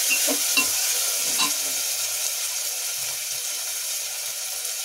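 Chopped onions sizzling in hot oil in an aluminium pressure cooker, with a metal spoon scraping and stirring them for the first second or so before the stirring stops and only the steady sizzle remains.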